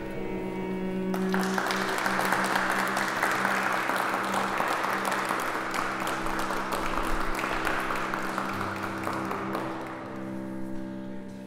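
Applause that starts suddenly about a second in and dies away near the end, over sustained music chords.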